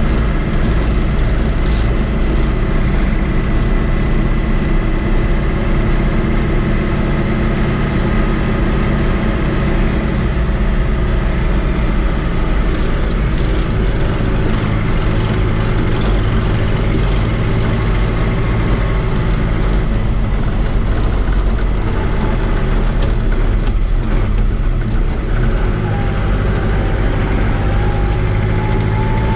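Fiat 80-90 DT tractor's diesel engine running steadily on the road, heard from inside the cab. Near the end the sound eases briefly and a rising whine comes in.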